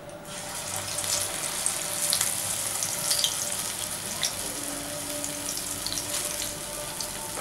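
Stuffed urad dal vada batter sizzling in hot oil in a kadhai as it is slid in to deep-fry. The sizzle starts suddenly just after the opening and carries on as a steady hiss with scattered pops.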